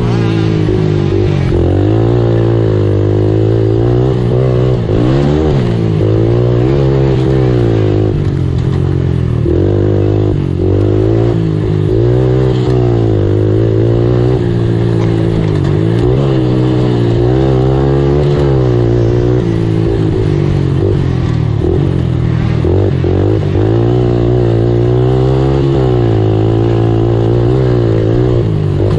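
Racing quad (ATV) engine heard up close from a camera mounted on the quad, revving up and dropping back again and again every second or two as it accelerates and slows through the course.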